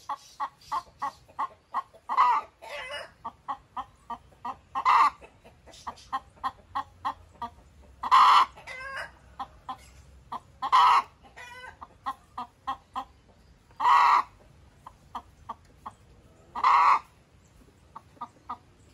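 Hen clucking and cackling: a run of short clucks, about two to three a second, broken roughly every three seconds by a louder, drawn-out squawk.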